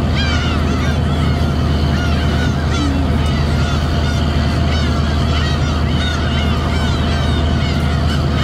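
A flock of gulls calling over and over, many short rising-and-falling cries overlapping, over the steady drone of a fishing boat's engine.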